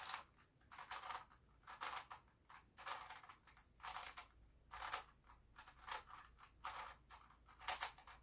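Grilles II puzzle cube, a plastic 3x3 face- and vertex-turning twisty puzzle, being turned by hand: about nine short scraping clicks, roughly one turn a second.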